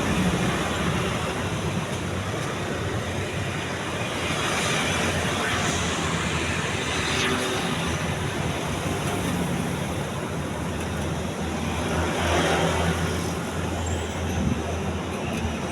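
Majestic Deluxe decorative ceiling fan running with a steady low electrical hum and a rush of noise. Its capacitor is broken.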